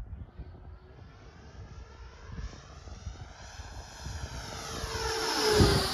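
FMS BAE Hawk 80mm electric ducted-fan model jet flying past: the high whine of its fan grows steadily louder as it closes in and is loudest near the end, as it passes close by.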